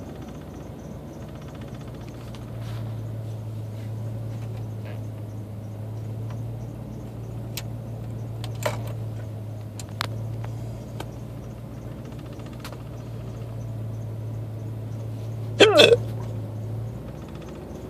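A man hiccuping several times, a few seconds apart, over a steady low hum. The last hiccup, near the end, is the loudest and comes out voiced.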